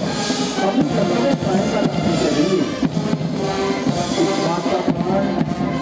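Military band playing a march, with drums keeping the beat under the melody.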